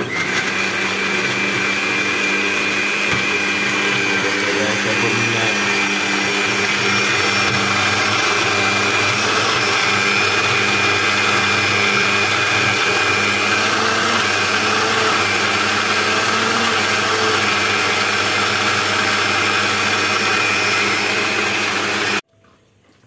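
Countertop electric blender running at a steady pitch, blending garlic and seasonings into a liquid marinade, then switched off abruptly near the end.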